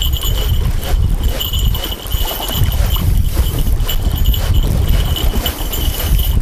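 Strong wind buffeting the microphone, with the small bite-alarm bells on the fishing rods jingling on and off several times.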